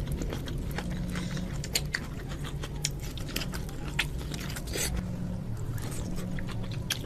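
Close-miked ASMR eating of seafood: chewing and biting, with many scattered sharp wet clicks over a steady low hum.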